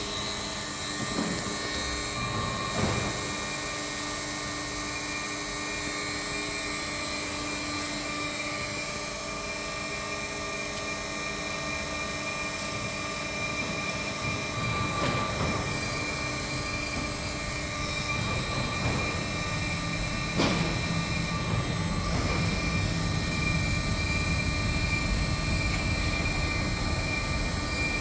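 Semi-automatic front feeder and flexo printing machine for corrugated board running, a steady mechanical hum and whine with several steady tones and a few sharp knocks; the running grows louder in the second half.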